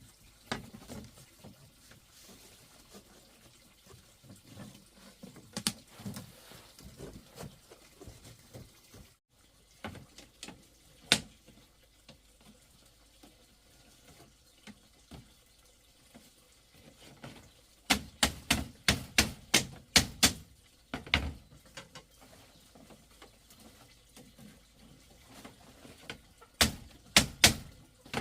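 Scattered sharp knocks and clicks, then two quick runs of rapid knocks at about five a second, the first a little past the middle and the second near the end.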